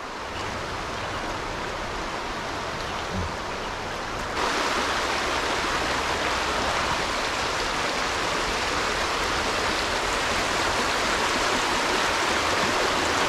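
Creek water rushing over rocks in shallow riffles, a steady rush that turns louder and brighter about four seconds in.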